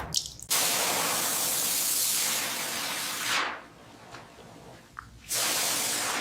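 Hissing spray in two long bursts: one of about three seconds, then a second starting near the end.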